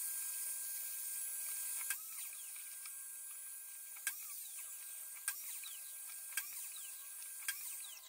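Ryobi sliding miter saw running with a steady high-pitched hiss as it cuts through a stack of plywood strips, with five sharp clicks spaced about a second apart.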